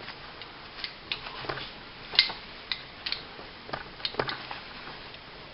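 Scattered light clicks and taps from the parts of a disassembled small 9mm 1911-style pistol being handled, about a dozen irregular ticks, the sharpest a little after two seconds in.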